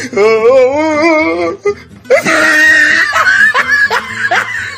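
Dubbed-in voice audio over the footage: a voice holds a wavering, vibrato sung note for about a second and a half. Then comes a loud cry and a run of quick rising laughs.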